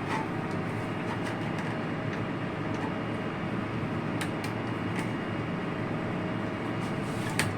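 Steady machinery hum with a few faint, sharp clicks from steel wire rope strands being handled and tucked during a thimble splice.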